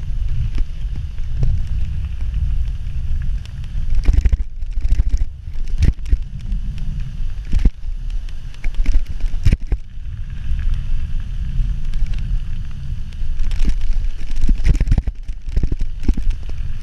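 Wind buffeting an action camera's microphone on a moving mountain bike, a heavy low rumble, with irregular rattles and knocks from the bike and tyres bouncing over a rough gravel trail.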